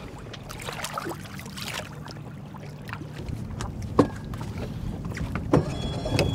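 Fishing boat trolling on open water: a low steady motor hum under water noise, with scattered knocks and splashes. One sharp knock about four seconds in.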